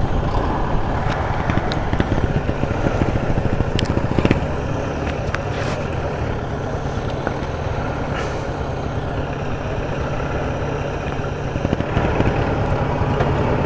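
Small single-cylinder motorcycle engine running steadily while riding a rough dirt trail, with scattered sharp clicks and knocks over the engine.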